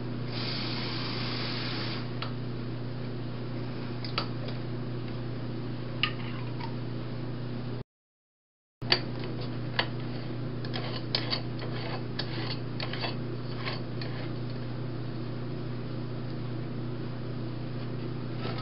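Water running briefly from a kitchen tap, then sharp metallic clicks and clinks as an aluminium Bialetti moka pot is handled and its two halves screwed together. A steady low hum runs underneath.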